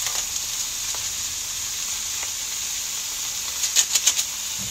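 Fried rice with diced ham and mixed vegetables sizzling steadily in a wok. About three and a half seconds in comes a quick run of scrapes and taps as a spatula stirs the rice against the pan.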